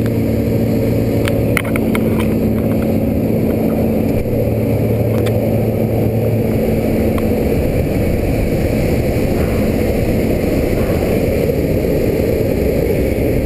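Loud, steady engine and propeller drone heard inside the cabin of a skydiving jump plane in flight, with a steady hum in the first half and a few faint clicks.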